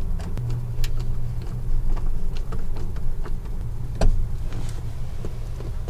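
A steady low machinery hum runs underneath, with scattered light clicks and taps from wire terminals being handled and fitted onto a terminal bar; the sharpest clicks come about a second in and about four seconds in.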